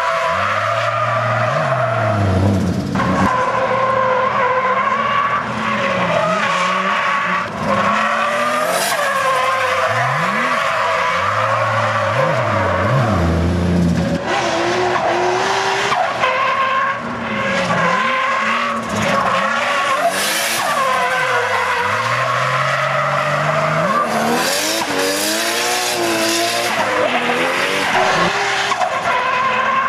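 Nissan S14 Silvia drifting, its engine revving up and falling back again and again through the corners, with tyres squealing as the car slides.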